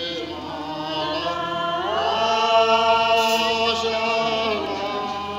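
A group of voices singing together, unaccompanied, in slow drawn-out notes; about two seconds in the melody slides up to a long held note, which eases down near the end.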